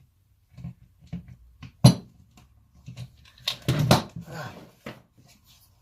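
Hand-held plastic sander housing and parts being worked apart during disassembly: scattered clicks and knocks, with one sharp click about two seconds in and a cluster of louder knocks about four seconds in.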